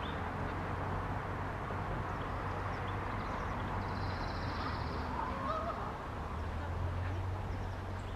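Outdoor trailhead parking-lot ambience: a steady low hum and general background noise, with a brief animal call about halfway through.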